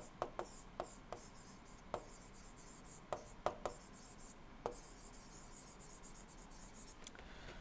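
Faint writing sounds of a stylus on an interactive display screen. About ten short, sharp ticks come in the first five seconds as the pen tip touches the surface, over a soft, high scratching hiss of the tip dragging across it.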